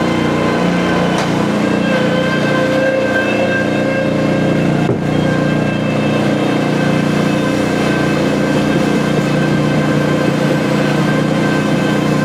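Kubota loader's diesel engine running at a steady speed, with one brief dip about five seconds in.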